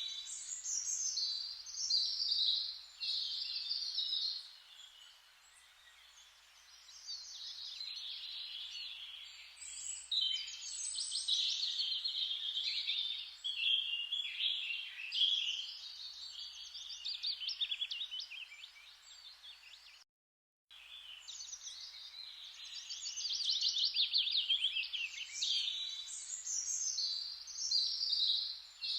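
Forest ambience: many songbirds chirping and singing over a steady hiss of rustling leaves. The whole sound cuts out for under a second about two-thirds of the way through.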